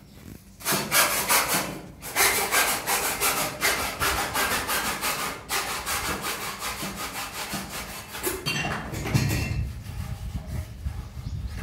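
Quick run of rasping, rubbing strokes from hand work on plastic drain-pipe fittings. The strokes are loudest through the first half, break off briefly about two seconds in, and go on softer and lower-pitched after the middle.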